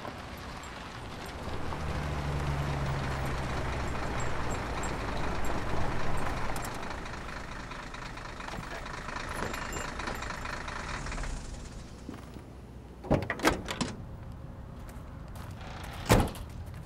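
A 4x4's engine runs, growing louder as it pulls up, then cuts off suddenly. A few seconds later come several sharp knocks of car doors shutting, and one more near the end.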